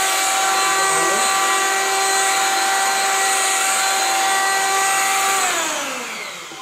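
Kyuho K-282 electric hand planer (580 W, rated 16,500 rpm) running free with no wood, a steady high whine. About five seconds in it is switched off and winds down, the whine falling in pitch and fading as the cutter drum slows.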